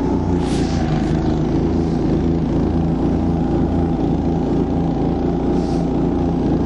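Husky mini snowmobile's small petrol engine running steadily under heavy load as it ploughs through deep, loose snow: straining but pushing on. Two brief hisses, about half a second in and near the end.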